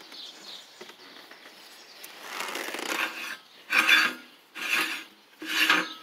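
Brass filler cap on a homemade fire-truck chemical tank being twisted by hand on its threads, grating in about four short rasps that start about two seconds in.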